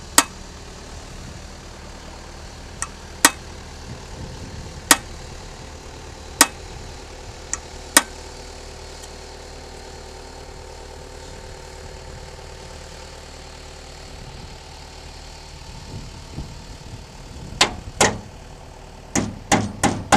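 Sharp metal-on-metal hammer blows, one every second and a half or so, then a quicker run of blows near the end, over a steady mechanical hum.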